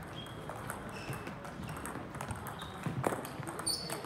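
Table tennis rally: the ball clicks sharply again and again off the bats and the table, with the hits loudest about three seconds in.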